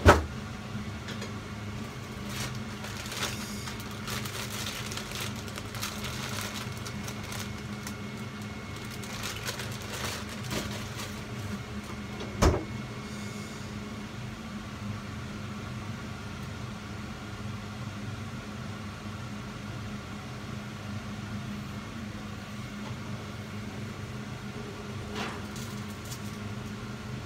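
Steady low mechanical hum of a kitchen appliance, with a few scattered clicks and knocks of handling and one sharp knock about twelve seconds in.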